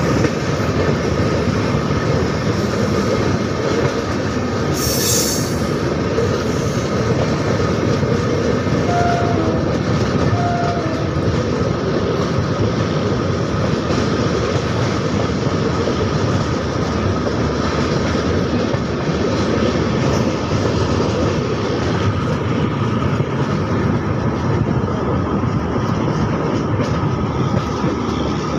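Passenger train running at speed, heard from an open coach doorway: a steady rumble and clatter of wheels on rails mixed with rushing air, with a brief high hiss about five seconds in.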